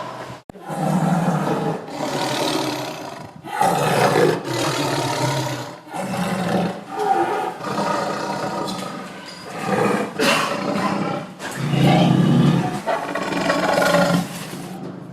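Tiger roaring, a run of loud, rough roars one after another with short breaks between them.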